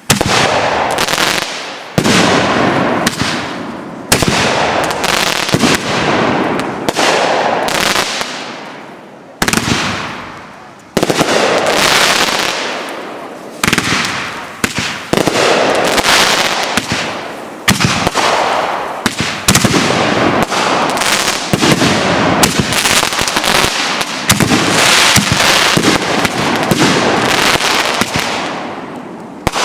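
Fireworks going off in quick succession: a long run of loud bangs, one every second or two, each trailing off in a noisy fade.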